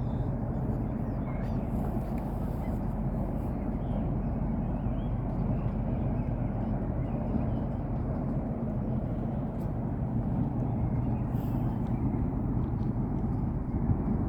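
An engine running steadily with a low hum under a steady rushing noise.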